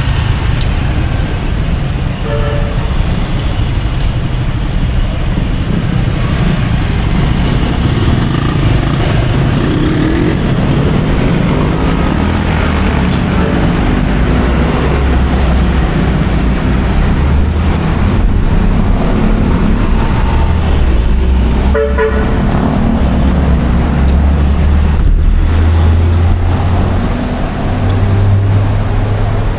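Busy city street traffic: engines of passing vehicles run with a steady low rumble that grows heavier partway through. Vehicle horns give short toots now and then, the clearest about three-quarters of the way through.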